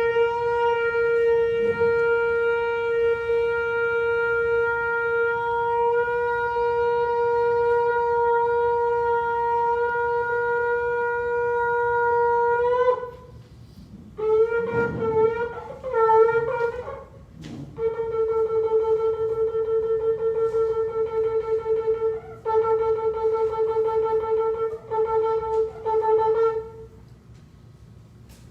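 Shofar blown: one long steady blast of about thirteen seconds, then a few short wavering notes, then a run of rapidly pulsed notes on the same pitch, broken by brief pauses.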